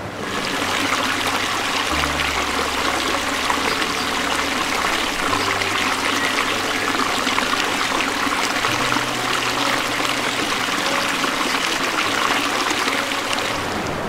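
Steady running water, a dense rushing with fine crackle, over low background music that changes note every few seconds.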